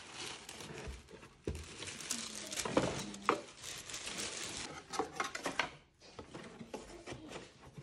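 Thin white packing wrap crinkling and cardboard box parts rustling and knocking as the packaging is handled, with several sharp knocks of cardboard among the crinkling.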